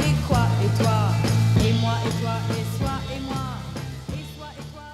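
Song with drums, bass and other instruments on a steady beat, fading out over the last couple of seconds.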